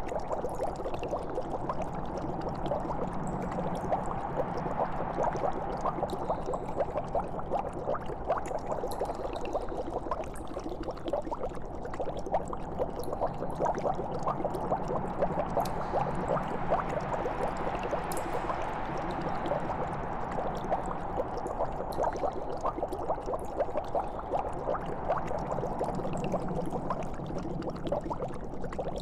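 Liquid bubbling and gurgling steadily: a dense, even run of small pops.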